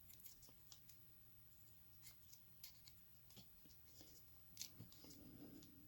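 Faint, scattered light clicks and scratching of small metal parts as a Mul-T-Lock cylinder is handled and taken apart with tools.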